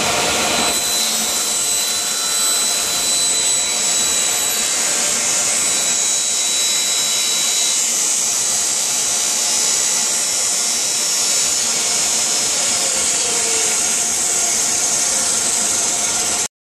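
Table saw running and cutting miters through a clamped stack of plywood boards held in a compound miter jig. A steady, loud high whine that cuts off suddenly near the end.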